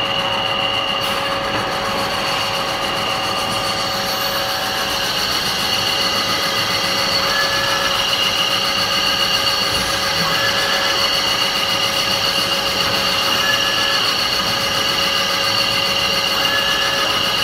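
Meat-processing conveyor line running: a steady machine hum with several constant whining tones. A short higher tone comes back about every three seconds in the second half.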